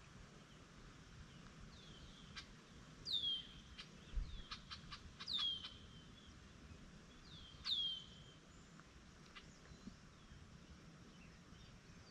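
A bird repeating a short down-slurred whistle about every two seconds, with a quick run of faint clicks partway through.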